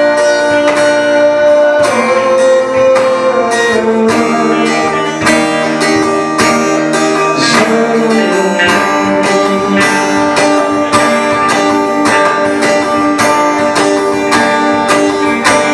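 Instrumental passage of an acoustic song, carried by a strummed acoustic guitar with sustained chord notes; no singing.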